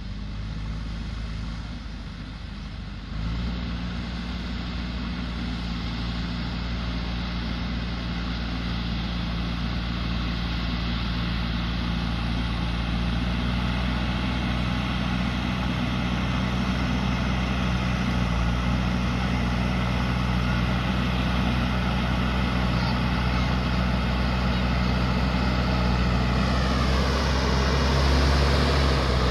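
JCB backhoe loader's diesel engine running steadily under work, getting gradually louder, with a step up in level about three seconds in. Near the end a high whine falls in pitch.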